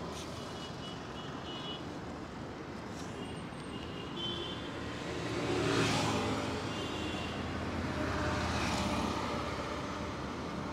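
Road traffic going by: a steady drone of vehicles, with one passing close and loudest about six seconds in, another about nine seconds in, and a few faint short high tones near the start.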